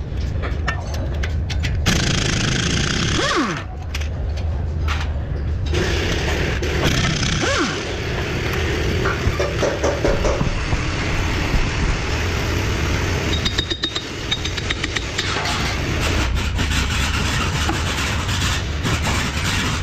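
Repair-shop noise: a steady low hum under stretches of hiss, with scattered light metal clicks and clinks as the wheel hub and brake dust shield are handled.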